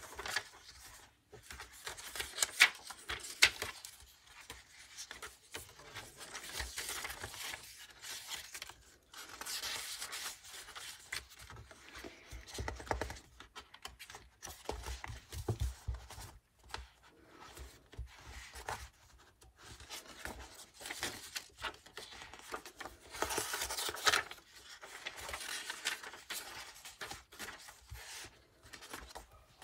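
Paper pages of a handmade junk journal being turned and handled by hand: irregular rustling, brushing and soft flaps of paper and card.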